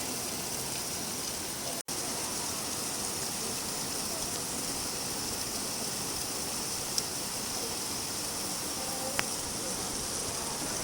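Steady rainfall, an even hiss of falling rain, which drops out for an instant about two seconds in. A couple of faint ticks come through it in the second half.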